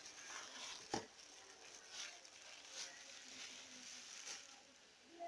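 Quiet kitchen handling: a sharp click about a second in, then a few faint taps and light rustling.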